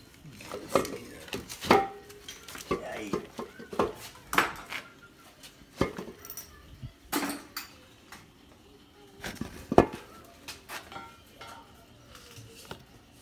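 Metal tools and engine parts clinking and clanking as they are handled, an irregular run of sharp knocks with a louder clank about ten seconds in.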